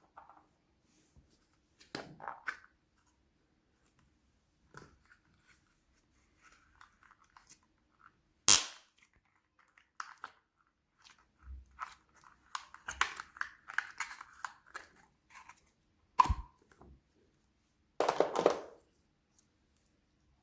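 Toy packaging being handled and opened: scattered plastic crinkles and taps, a sharp snap about eight seconds in and another about sixteen seconds in, and a short rasping burst near the end.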